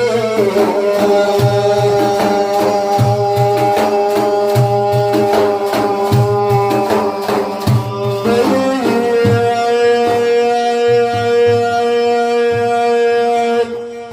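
Instrumental interlude of a Sufi praise song: drums beat a steady rhythm under a long held melodic note, which steps up to a higher note about eight and a half seconds in. The music drops away just before the end.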